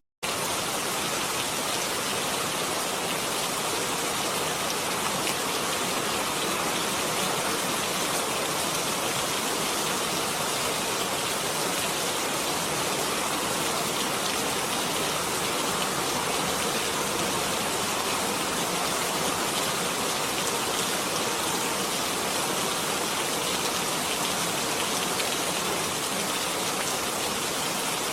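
Rain falling steadily, an even hiss of many drops with no distinct single events, broken only by a split-second dropout at the very start.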